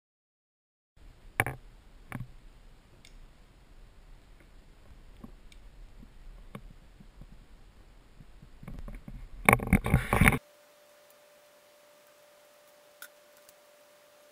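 Scattered clicks and light knocks of hands handling a wakeboard, over a low rumble, with a louder clatter of handling noise near the end that cuts off suddenly. After it, a faint steady hum with one more click.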